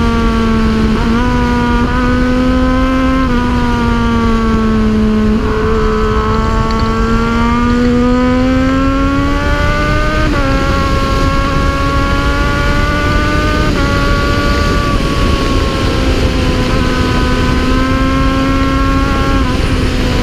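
Triumph Daytona 675's three-cylinder engine held at high revs at speed, its pitch drifting gently up and down with a few brief dips and steps as the throttle changes, over constant wind rush.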